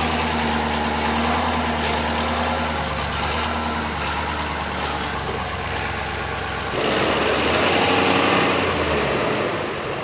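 Ford Super Duty pickup's engine running steadily at low speed while towing a portable sawmill. About seven seconds in, a louder rushing noise joins for about two seconds.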